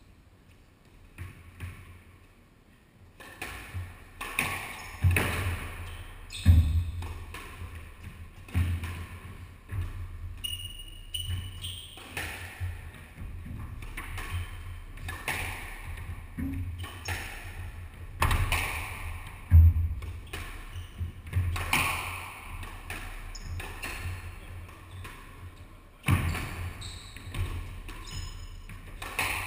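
Squash rally: rackets striking the ball and the ball smacking the walls and floor, a sharp hit every second or two, starting about three seconds in.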